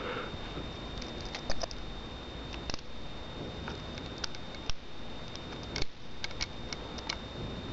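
Small irregular metallic clicks and taps of a mini screwdriver and screw working against a PS3 hard-drive caddy, as a screw that won't go in is fiddled with.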